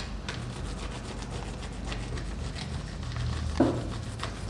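Scraping and rubbing on a painted canvas as a ground is worked up, with a single knock about three and a half seconds in.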